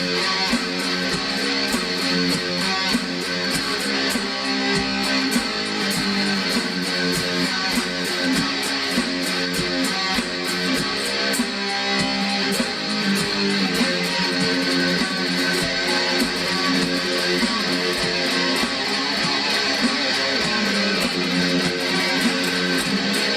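Guitar music with steady strumming, held chords changing every few seconds.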